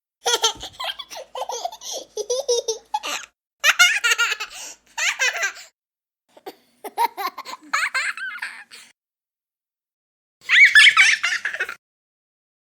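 A young child laughing in several separate bouts, with short silent gaps between them. Near the end comes a higher, brighter burst of 'ha ha' laughter.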